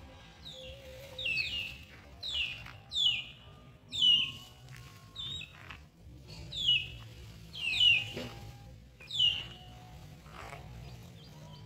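A bird calling repeatedly: about nine short, sharp chirps that sweep downward in pitch, coming singly and in pairs, over faint background music.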